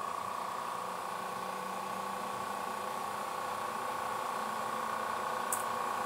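Varian turbo pump cart running, its turbomolecular pump spun up and pumping down: a steady high whine over a low mechanical hum, getting slightly louder.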